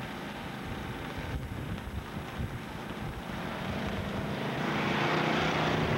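Farm tractor engine running, growing louder about four seconds in as the tractor comes close.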